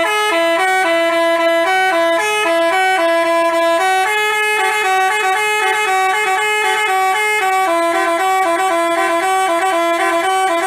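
Basuri telolet bus horn playing a tune: several horn tones sound together and step from note to note several times a second. It stops abruptly near the end.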